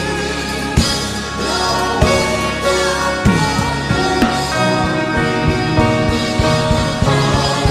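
Gospel worship band music: sustained chords over a drum kit beat, with a drum hit about once a second.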